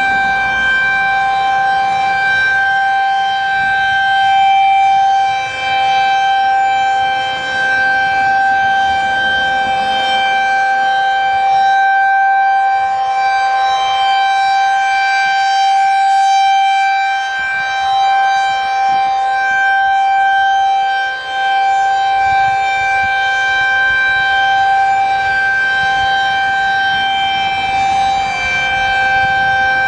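Federal Signal 2001-SRN rotating mechanical siren sounding the Alert signal: one loud steady tone that holds its pitch. Its loudness swells and dips as the rotating horn turns toward and away.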